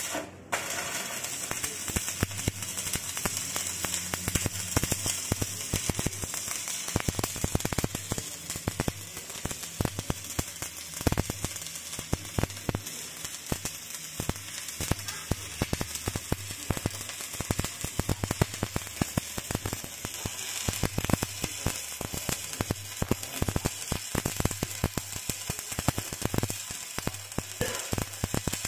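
Stick (shielded metal arc) welding: the electrode's arc crackling and sizzling continuously, with a low hum coming and going underneath.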